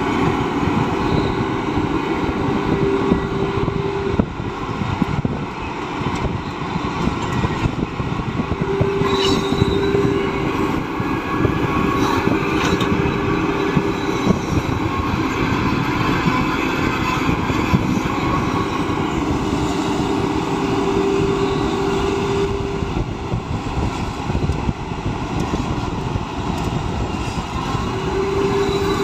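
Heavy excavator at work: its diesel engine runs steadily under load, a whine comes and goes several times, and there are a few sharp clanks.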